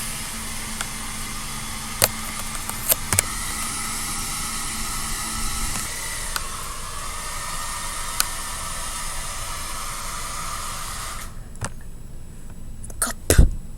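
Hair dryer blowing with a steady hiss and a few sharp clicks, stopping suddenly near the end, followed by a couple of loud knocks.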